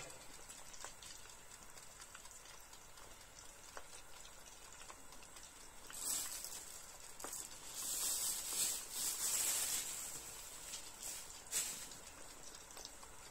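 Large meat buns frying in oil, a steady faint crackle and sizzle, with louder bursts of hissing about six seconds in and again for a couple of seconds from about eight seconds.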